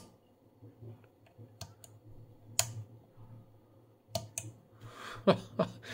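Small metal toggle switches on the front panel of a homebrew 1974 pulse generator flicked back and forth, giving a handful of sharp clicks spread through, over a faint steady low hum.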